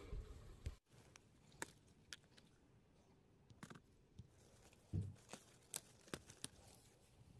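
Near silence with scattered faint rustles and clicks of tomato plants being handled as the fruit is picked.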